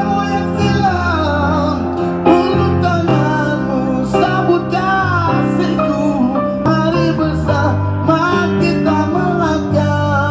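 Live street band playing: acoustic guitar and electric bass with keyboard, low bass notes held under a wavering lead melody.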